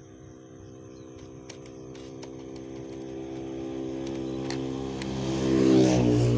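A motor vehicle approaching and passing close by. Its engine grows steadily louder and its pitch drops as it goes past near the end. A steady high insect trill runs underneath.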